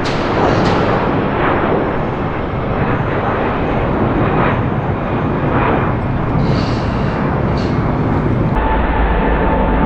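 Jet airliner engines at takeoff thrust: a loud, steady roar with some sharp crackles. About eight and a half seconds in, the sound cuts to a duller, deeper rumble with a steady engine whine.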